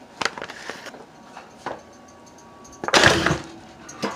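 Oven door and baking pan being handled as a pan of chicken goes into the oven: a few light clicks and knocks, then a loud clatter about three seconds in.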